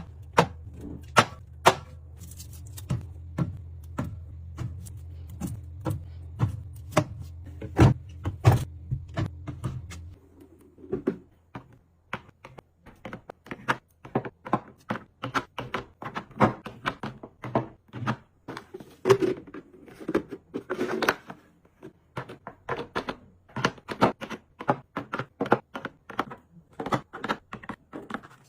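A long run of light clicks, taps and knocks from small hard objects being handled, like containers, lids and items set down. A low steady hum underneath cuts off about a third of the way in, after which the clicks come faster and more irregular.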